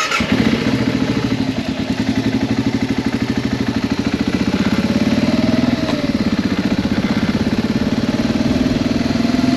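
Dual-sport motorcycle engine running at low revs with an even, fast pulsing beat.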